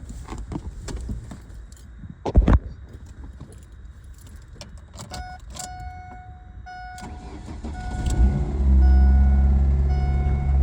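A thump about two seconds in, then a car's warning chime beeping steadily, and about eight seconds in the Ford Focus engine starts after a few days sitting and settles into a steady run.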